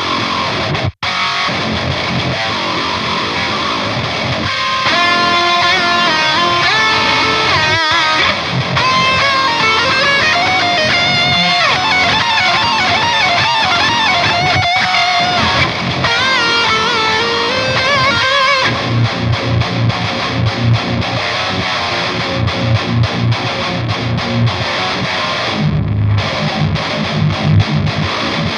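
Distorted high-gain electric guitar through a Diezel VH4 tube amp playing a metal song. A melodic lead line with bends and vibrato gives way, about two-thirds of the way in, to choppy staccato riffing.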